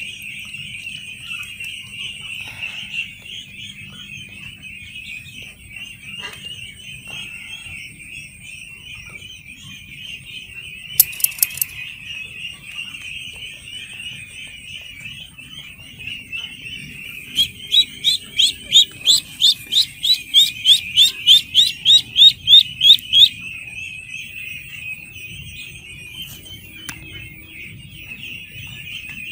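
A flock of ducklings peeping all the while. Partway through, one duckling close by gives a loud run of rising peeps, about three a second, for some six seconds. A few sharp clicks come a little before that.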